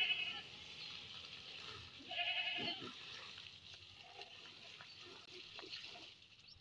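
A goat bleats twice, a short wavering call at the very start and again about two seconds in, over the faint steady hiss of a garden hose spraying water over a motorcycle.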